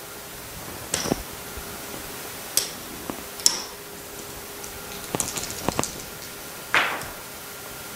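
Casino chips and dice being handled on a craps table layout, a handful of separate sharp clicks as chips are stacked and set down, over a faint steady hum.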